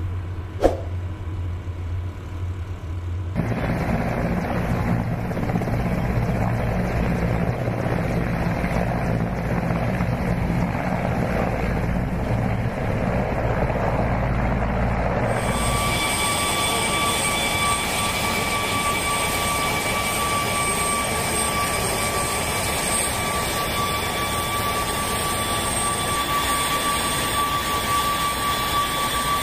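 Several helicopters flying over with a steady rotor and engine noise. About halfway through this gives way to jet aircraft engines running with a steady high whine over a broad rush.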